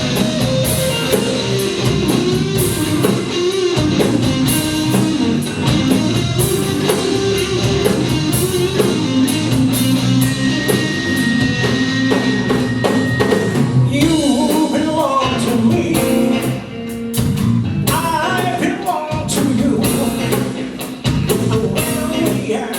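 Live band music: a rock-blues groove on drum kit and electric guitar, with no sung words.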